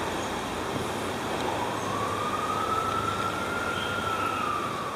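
A single siren wail that rises slowly in pitch, peaks about three and a half seconds in, then falls, over a steady background hiss.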